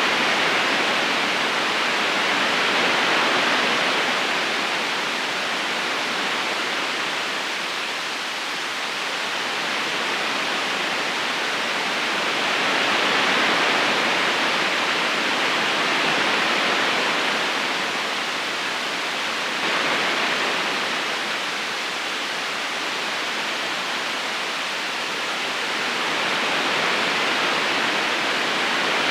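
River current flowing over rocks: a steady rushing of water that slowly swells and eases every few seconds.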